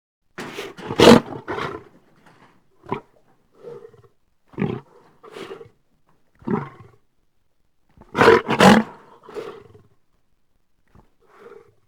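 Beast growls and roars from a sound-effect track, coming as separate bursts with silence between. The two loudest come about a second in and about eight seconds in, with shorter growls between them and a faint one near the end.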